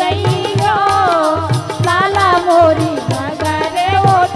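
Bundeli folk music: dholak and tabla drumming a steady beat under a wavering melodic line, with no sung words.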